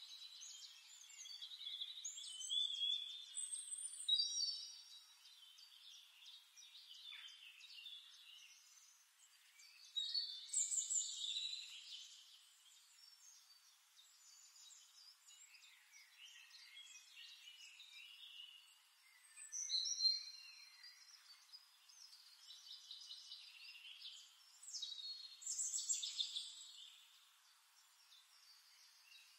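Small songbirds chirping and singing: quick trills and whistled phrases that come in louder bursts every several seconds, with softer twittering between them.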